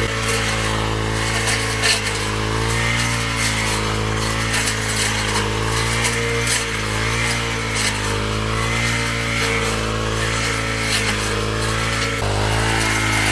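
Small engine of a garden machine running steadily, its pitch wavering slightly as the load changes, with a shift in its sound about twelve seconds in.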